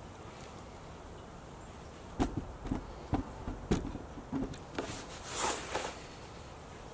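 Hands rubbing and scratching a Siberian husky's thick fur. About two seconds in comes a run of soft clicks and knocks, followed by a brief rustle near the end.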